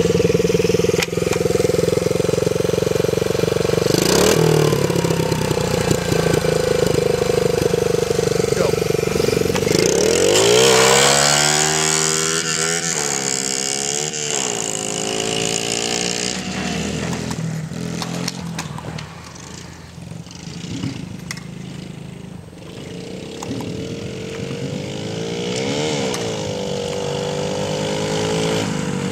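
Honda Z50 mini bike's small single-cylinder four-stroke engine running steadily up close, then revving up about ten seconds in and pulling away, its pitch rising and dipping several times as it gains speed. It fades with distance in the middle and grows louder again, revving, as it rides back toward the listener near the end.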